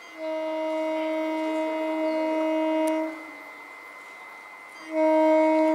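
Old green electric multiple unit (EMU) local train sounding its horn as it approaches: one long single-note blast of about three seconds, then a second, shorter blast near the end that is cut short.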